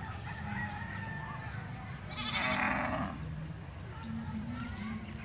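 A single farm-animal call, about a second long, about two seconds in, over faint bird chirps.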